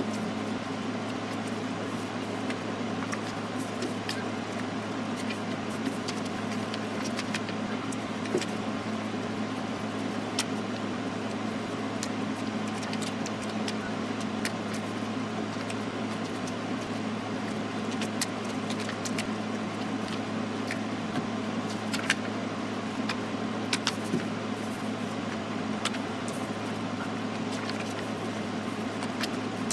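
Sheets of paper being folded and creased by hand, with scattered light crinkles and taps over a steady low hum.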